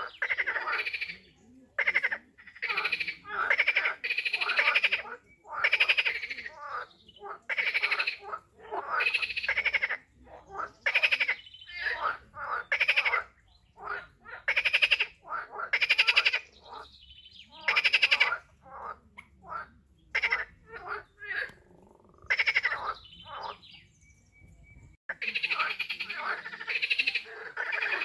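A chorus of frogs croaking, the calls coming in quick, overlapping runs about once a second, with a brief lull near the end.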